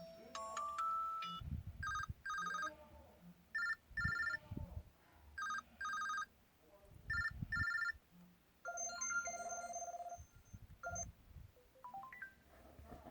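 Built-in ringtone of an LG-SU910 Cooky mobile phone playing through its small speaker: electronic double beeps repeating about four times, with low thuds in between, then a longer warbling tone and a few short rising blips near the end.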